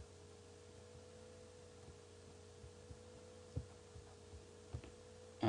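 Low, steady electrical hum from the recording setup, with a few faint clicks of a computer mouse about three and a half and five seconds in.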